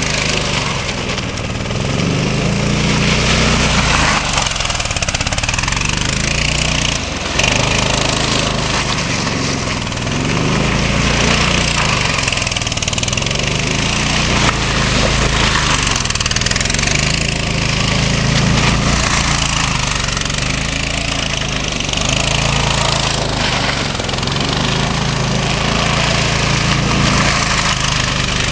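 Homemade go-kart's small engine running under throttle, its pitch rising and falling again and again as the kart speeds up and slows while driving around.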